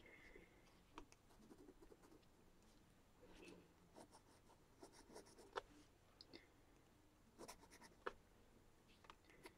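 Faint pencil sketching on sketchbook paper: irregular short scratchy strokes and light taps of the lead.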